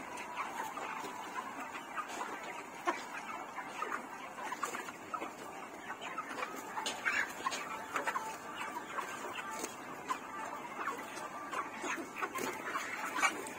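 A flock of chickens clucking, many short calls overlapping in a steady chatter.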